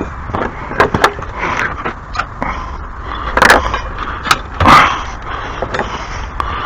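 Irregular knocks, clicks and scrapes of things being handled, with two longer scrapes about three and a half and nearly five seconds in.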